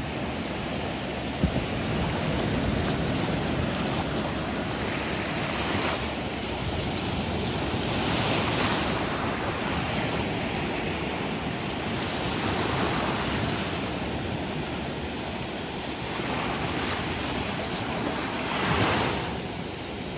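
Sea waves washing onto a shore, a wave swelling and breaking every few seconds, the biggest near the end, over a constant low rumble of wind on the microphone.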